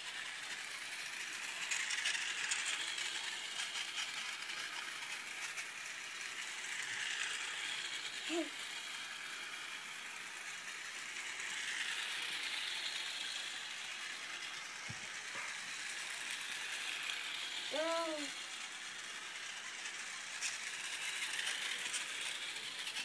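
Toy train running on its rails, its small motor whirring and its wheels clattering, the sound swelling and fading every four or five seconds.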